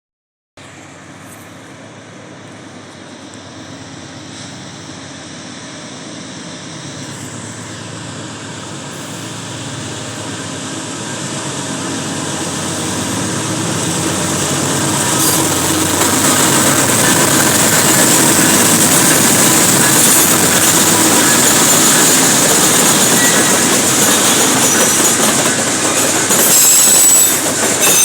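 Heavy freight train led by a GE Dash 9 diesel-electric locomotive approaching and growing steadily louder for about fifteen seconds. Loaded freight wagons then roll past, their wheels clattering and squealing on the rails.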